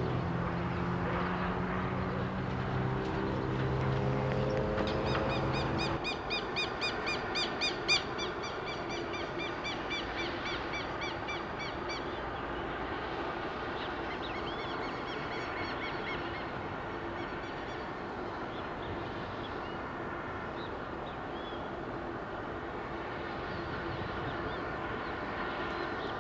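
A diesel freight locomotive runs in the distance, its engine note rising slowly over the first few seconds. Then comes a bird calling in quick repeated chirps, about three a second, for some six seconds. After that a locomotive engine hums faintly and steadily, with occasional bird chirps.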